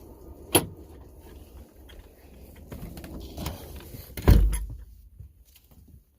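A door being handled: a sharp click about half a second in, then a heavy thump just after four seconds as it shuts.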